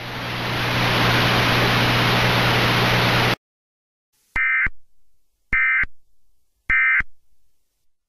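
Radio static with a low hum for about three seconds, cutting off abruptly. After a second of silence come three short, identical data-tone bursts a little over a second apart: the Emergency Alert System end-of-message (EOM) header that closes the alert.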